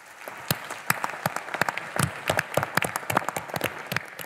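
Audience applauding: a dense wash of clapping with many individual claps standing out sharply. It builds up in the first half-second and begins to thin out near the end.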